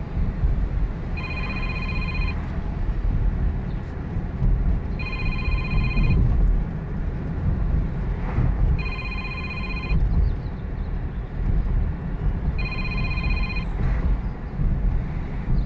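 A repeating electronic ringing tone, like a phone ringing: four rings, each about a second long and about four seconds apart, over a steady low rumble.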